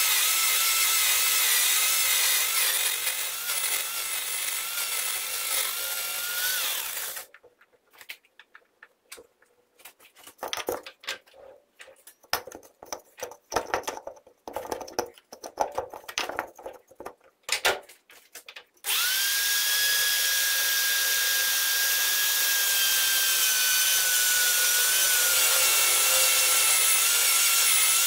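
Metal lathe turning a metal shaft: the spindle runs with a steady whine and cutting noise, then stops about a quarter of the way through. A quiet stretch of scattered clicks and knocks from handling the work follows. About two-thirds of the way through, the lathe starts again with a whine that settles slowly lower and runs steadily.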